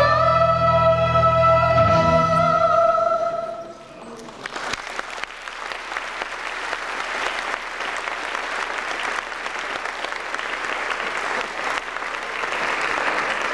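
Female voices and the backing music hold a song's final note, cut off about three and a half seconds in, then audience applause and clapping that carries on steadily and swells slightly near the end.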